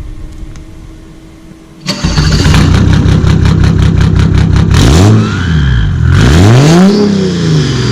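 Engine fitted with a cheap add-on turbo whistle comes in abruptly about two seconds in, runs with a rapid even pulse, then is revved up and down twice. A thin high whistle rises and falls along with the revs.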